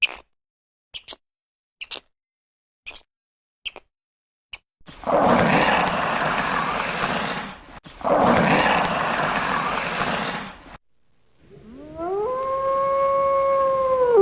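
A run of animal sounds: a series of short sharp clicks, then two long rough roars, then a long call that rises in pitch and holds steady.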